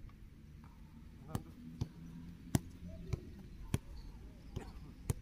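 A football being struck and handled in a goalkeeper drill: a series of sharp thuds, about seven in four seconds, from kicks and the ball meeting goalkeeper gloves.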